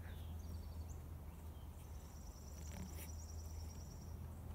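Faint outdoor ambience in woods: a few short high chirps, then a thin high-pitched trill that starts about two seconds in and lasts about two seconds, over a low steady rumble.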